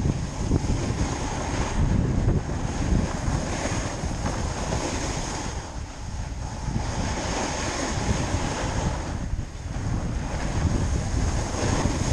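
Gusty wind noise rushing over a camera microphone, as when the camera is carried at speed while snowboarding downhill. It surges and eases every second or two.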